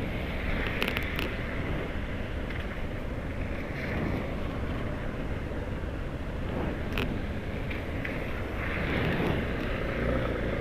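Motorcycle engine running steadily, heard through a camera mounted on the bike, with a few short clicks.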